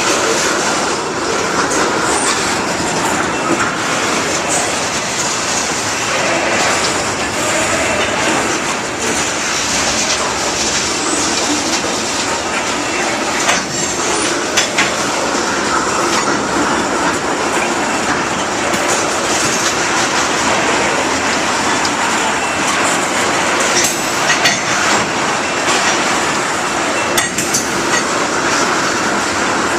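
Iowa Interstate Railroad freight cars rolling steadily past, the wheels clacking over the rail joints, with a few sharp clicks now and then.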